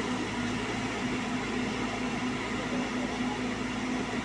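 Heavy diesel engine running steadily at a constant speed, a low, even hum.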